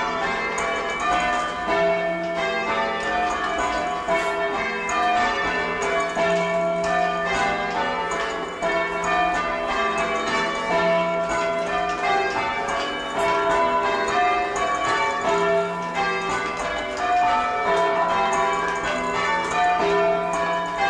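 Tower bells being change rung on ropes: a continuous, even succession of overlapping bell strikes. The sixth bell has lost its clapper, so its place in the ringing sounds no note.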